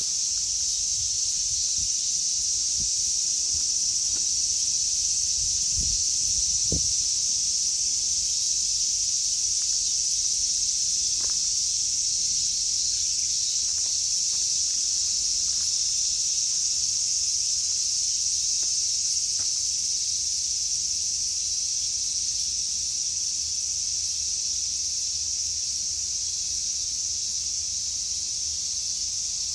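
Steady, high-pitched chorus of insects shrilling without a break. A few soft low thumps come in the first seven seconds.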